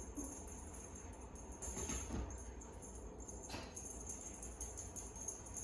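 Faint jingling and rattling of a cat toy being played with, with soft rustles about two and three and a half seconds in.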